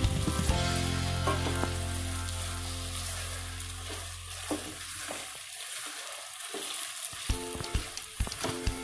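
Diced chicken and vegetables with tomato paste sizzling as they fry in oil in a stainless steel pot, stirred with a wooden spoon. Sharp knocks and scrapes of the spoon against the pot come in the last couple of seconds. Steady low notes of background music fade out about halfway through.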